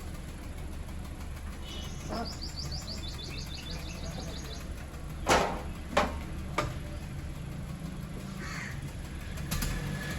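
Honda Civic engine idling steadily with a low hum, with a fast high bird trill early on. About halfway through come three sharp knocks, the loudest sounds.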